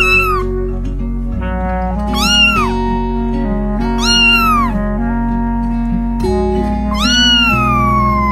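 A cat meowing over background music: a short meow ends right at the start, then two meows about two seconds apart, then a longer drawn-out meow that falls in pitch near the end.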